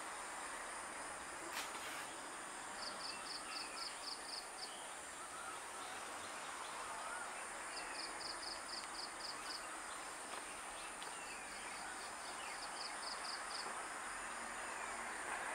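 Outdoor ambience among trees: a steady high insect hiss, with three phrases of rapid high chirps, about four a second, a few seconds apart, and faint short bird whistles.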